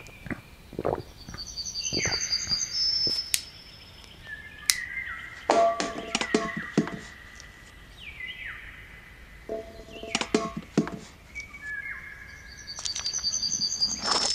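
Birds chirping, with a quick run of repeated high notes about two seconds in and again near the end, over scattered clicks, knocks and rustles.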